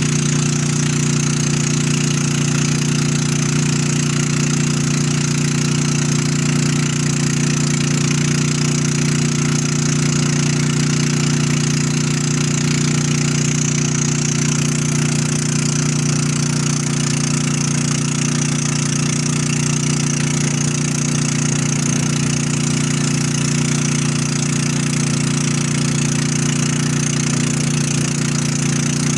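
Motorboat engine running steadily at cruising speed, a constant hum that holds the same pitch throughout, with water rushing along the hull.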